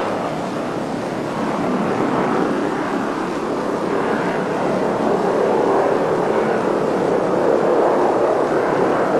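Boeing YC-14's over-wing turbofan jet engines running steadily in flight, an even engine noise with no sudden changes.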